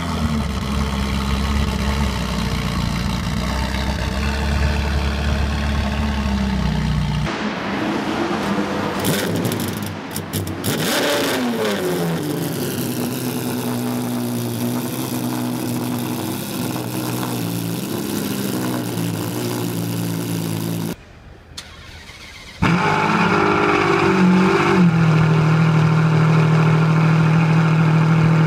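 Three Ferrari engines heard in turn. First an F40's twin-turbo V8 idling steadily, then an F50's V12 revved briefly a couple of times and settling back to idle. After a short quieter gap, an Enzo's V12 idles steadily.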